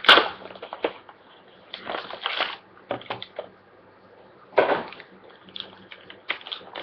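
Trading card pack wrapper being torn open and crinkled, with cards being handled, in irregular rustling bursts; the loudest come right at the start and again about halfway through.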